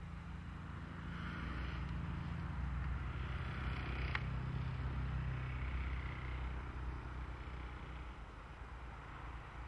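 Low, steady engine hum of a distant vehicle that swells for a few seconds and then eases off, with a single sharp click about four seconds in.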